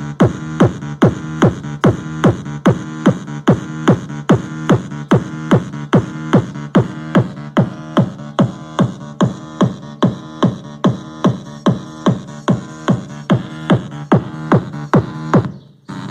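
Electronic music with a fast, steady pounding beat, about two and a half beats a second, over a sustained low bass line, played loud through a car sound system's Selenium woofer and speakers. Near the end the beat breaks off and a different passage starts.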